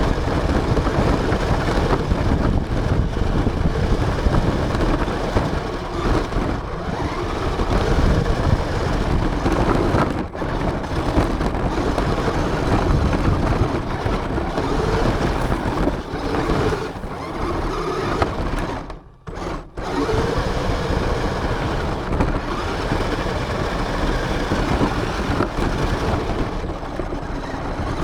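Radio-controlled car running, heard from a camera mounted on it: continuous motor and drivetrain noise with rattling and rumbling over the ground. The sound drops away briefly twice, most deeply about two-thirds of the way through.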